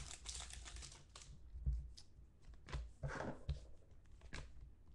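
Foil trading-card pack wrapper crinkling in the hands, then faint rustles and a few short clicks as the thick chromium cards are slid out and handled.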